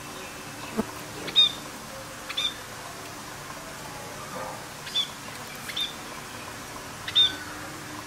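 Budgerigars giving short, sharp chirps, about five of them a second or two apart, over a light steady hiss.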